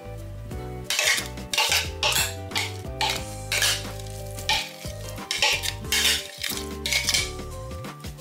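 A kitchen utensil stirring and scraping in a bowl in irregular strokes, about one or two a second, over background music.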